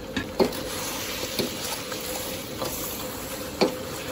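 Thick honey-soy glaze bubbling and sizzling in a hot wok as fried chicken legs are stirred through it, with a metal ladle knocking against the wok a few times.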